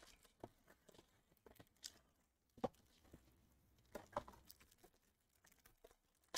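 Faint crinkling and tearing of a foil trading-card pack wrapper being handled and pulled open: scattered small crackles, a few stronger ones around three and four seconds in, and a sharper one at the very end.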